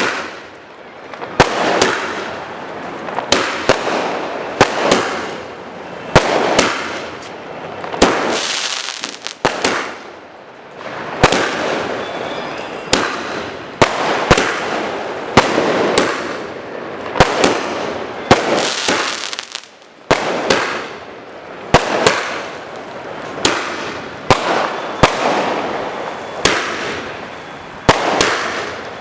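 A 60-shot multishot aerial firework cake firing in sequence. There is a sharp bang about every second and a half, and each is followed by a loud crackling burst that fades away before the next shot.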